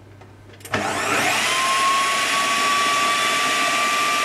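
Food processor switched on with a click about a second in, its motor whining up to speed and then running steadily as the blade blends thick muffin batter of dates, flour and eggs.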